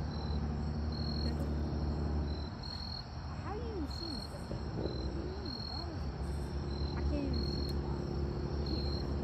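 Crickets chirping: a short high chirp repeating at even spacing, about once a second. Under it a low steady hum fades out after about two and a half seconds and comes back around six seconds in.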